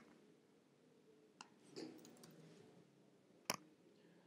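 Near silence with a few faint computer-input clicks: a soft one about a second and a half in and a sharper one about three and a half seconds in.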